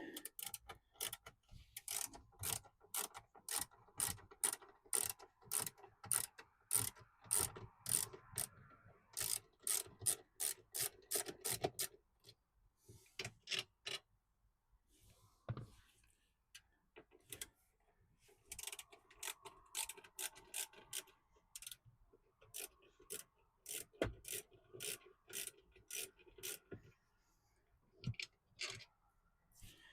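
A hand ratchet with a Torx bit clicking rapidly as it backs out the T30 screws of a grab handle. The clicking comes in two long spells with a pause of a few seconds between them.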